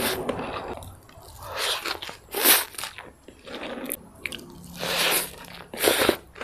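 Close-miked eating sounds: several crunchy bites and chewing of fried rice vermicelli with bean sprouts, the loudest bite about two and a half seconds in.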